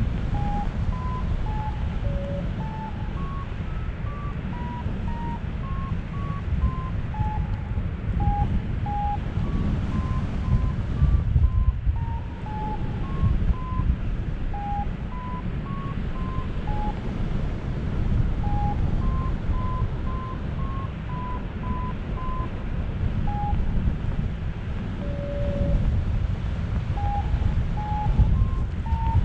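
Paragliding variometer beeping in short tones that step up and down in pitch as it signals lift, over steady wind rushing on the microphone in flight.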